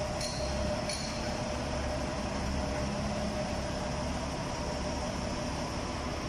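Forklift engine running steadily with a low rumble, with a couple of light metal clinks in the first second.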